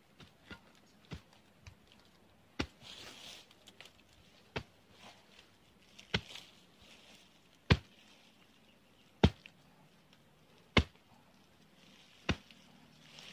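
A machete chopping into roots and soil at the base of a small tree being dug out: a few light taps, then firm single blows about every second and a half.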